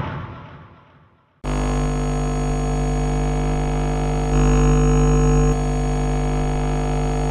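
A loud noise fades away into a moment of silence. Then a steady electronic drone starts abruptly, a deep hum under many held tones, and it grows louder for about a second midway.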